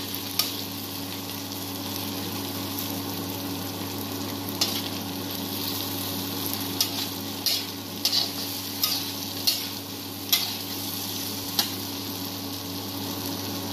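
Diced potato and carrot sizzling in oil in a wok while a slotted metal spatula stirs them. The spatula clicks sharply against the pan about nine times, more often in the second half.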